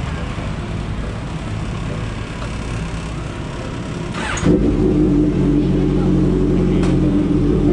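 Suzuki motorcycle engine idling, with a sudden step up to a louder, steadier hum about four seconds in.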